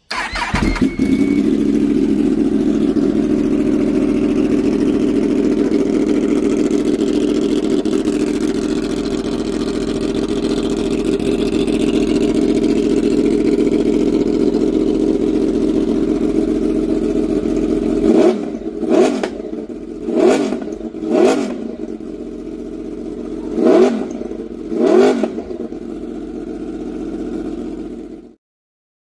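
Yamaha YZF-R1 crossplane inline-four with an Austin Racing exhaust starting up and idling steadily. After about eighteen seconds it is revved in six short throttle blips, then it settles back to idle and cuts off suddenly near the end.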